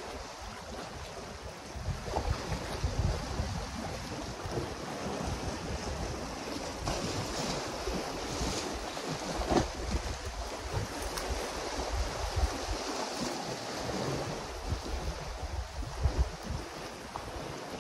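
Wind buffeting the microphone over sea swell washing against the rocks, with a few sharp clicks.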